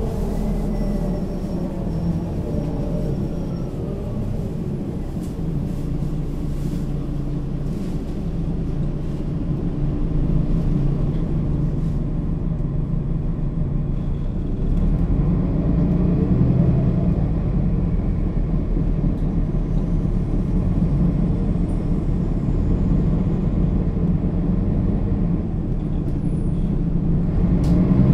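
Mercedes-Benz Citaro O 530 G articulated bus with its diesel engine and Voith automatic gearbox, heard from inside the bus while it is driving. The drone is steady, and a whine rises in pitch about halfway through. The sound grows louder midway and again near the end.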